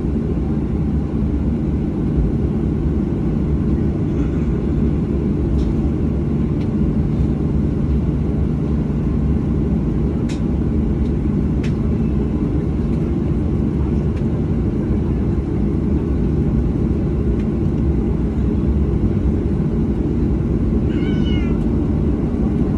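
Steady low cabin rumble inside a Boeing 737-700 parked at the gate before pushback. Two faint clicks come about ten and twelve seconds in, and a brief high, wavering call near the end.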